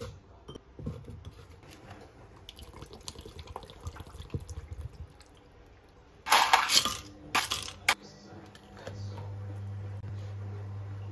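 Light knocks and rustles of kale and pineapple chunks going into a glass blender jar. About six seconds in comes a loud rushing burst, with a shorter one a second later. A low steady hum sets in near the end.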